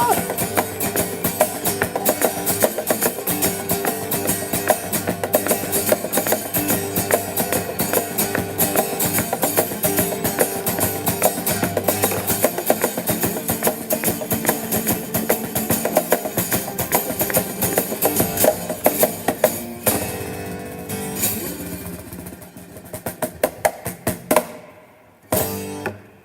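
Guitar and drum kit playing the instrumental ending of a rock song. The full band sound stops about 20 s in, leaving a few separate drum and cymbal strikes that die away near the end.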